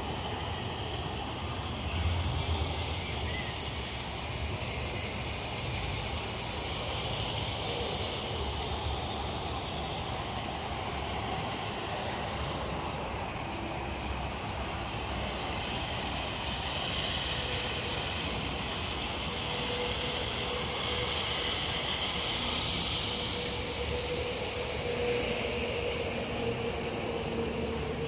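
Steady outdoor background noise: a low rumble under a high hiss that swells twice, with a faint steady drone joining in about two-thirds of the way through.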